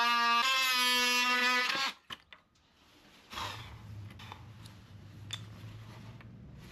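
Background music, sustained instrumental notes that shift pitch once and stop about two seconds in. Then a much quieter stretch of faint clicks, and a low steady hum with light scraping noise from about three seconds in.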